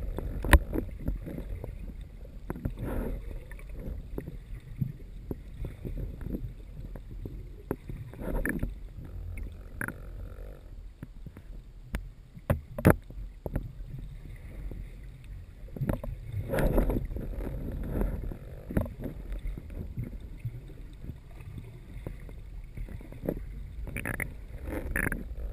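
Muffled underwater water noise heard from inside a camera housing while the diver swims: a steady low rumble that swells now and then, with a few sharp clicks and knocks.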